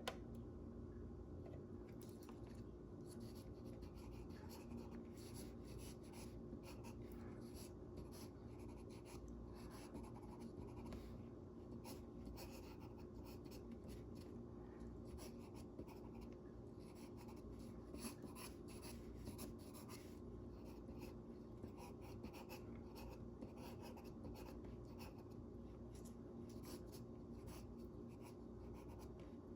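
Faint scratching of a drawing tool on paper: quick, irregular sketching strokes that begin about two seconds in, over a low steady hum.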